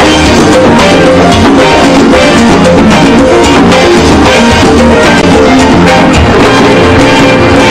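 Salsa music with percussion and a plucked string instrument, played loud with a steady dance beat.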